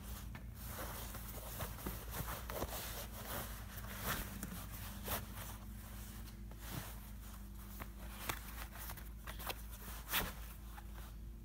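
Cotton karate belt and gi rustling and brushing as hands wrap, pull and knot the belt, with scattered soft clicks over a steady low hum.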